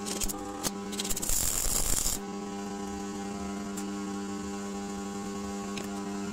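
Steady electrical mains hum. About a second in, it is broken by a second or so of rough scraping noise, with a few sharp clicks just before.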